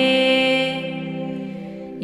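Sanskrit devotional chanting with music: the last note of a chanted line is held and fades away over a steady drone.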